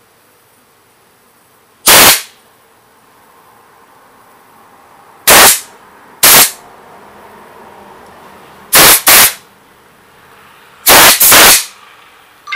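Compressed-air blow gun fired in seven short, loud blasts into the jets of a plastic Briggs & Stratton carburetor, the last four in two quick pairs. The passage is so plugged that even 120 PSI air does not clear it.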